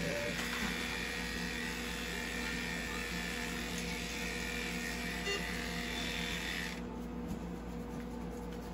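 Cordless electric pet clipper buzzing steadily as it shaves the belly fur of an anesthetized French bulldog for surgery. It switches off abruptly about seven seconds in.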